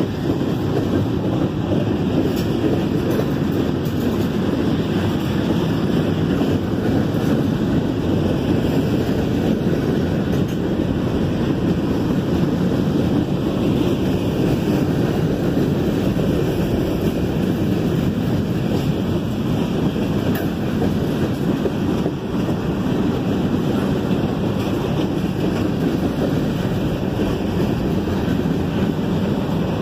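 CSX freight train's cars rolling past close by: a steady rumble of steel wheels on the rails.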